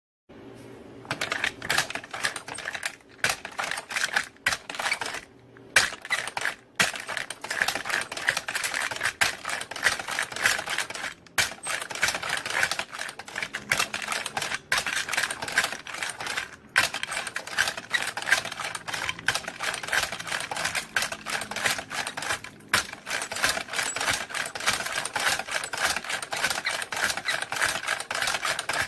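Machine-gun belt-loading machine working, with rapid, continuous metallic clacking as cartridges are pressed into the belt. A few brief pauses break the clacking.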